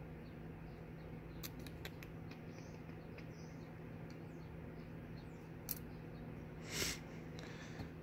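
Faint small metal ticks and clicks of lock parts being handled while a Yale pin-and-slider cylinder is taken apart, a few scattered ticks over a steady low hum, with a brief soft rustle near the end.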